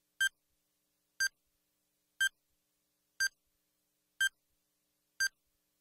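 Bomb countdown timer beeping once a second, six short identical electronic beeps with dead silence between them, marking the timer running down.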